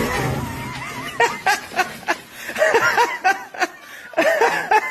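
Many cats meowing over one another in short rising-and-falling meows, crowding around the person bringing their food.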